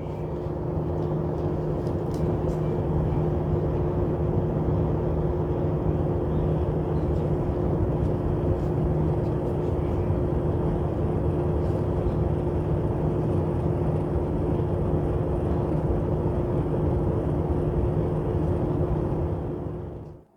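Small battery-powered DC fans of a homemade cardboard air conditioner running steadily: an even whoosh of moving air over a low two-tone motor hum, which cuts off suddenly at the end as they are switched off.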